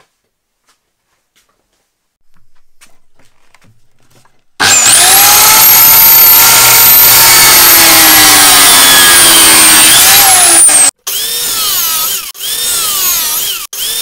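Electric cut-off saw cutting metal bar, starting about four and a half seconds in. The motor's high whine sinks slowly as the disc bites through the metal, then rises and stops suddenly. It is followed by a few shorter cuts, each with the whine wavering up and down.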